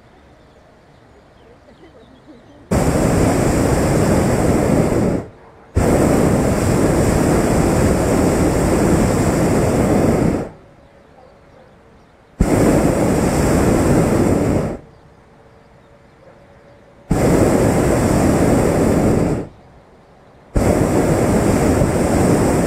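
Hot-air balloon's propane burner firing in five blasts of about two to five seconds each, each one cutting in and out abruptly with short quiet gaps between; the last blast is still going at the end. Each blast heats the air in the envelope.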